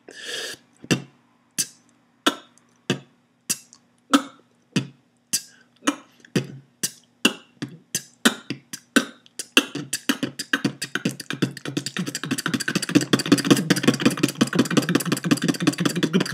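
Beatboxer looping the basic three sounds, kick drum 'B', hi-hat 't' and outward 'K' snare, as B-t-K. It starts at a little under two sounds a second and speeds up steadily. From about ten seconds in it runs together into a fast rattle as he pushes for top speed.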